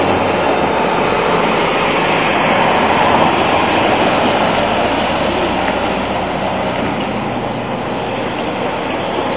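Street traffic: a box delivery van drives past close by, its engine and tyres loudest a few seconds in, then fading as it moves away.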